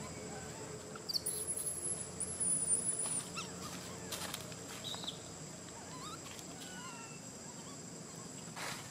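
Outdoor woodland ambience: scattered short bird chirps and a thin wavering high whistle, over a steady high-pitched insect drone, with a few faint ticks and rustles.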